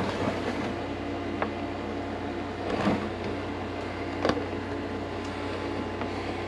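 A few handling clicks and knocks as a camera is unclipped and repositioned on its mount, the sharpest about four seconds in. Under them runs the steady low hum of a window air-conditioning unit.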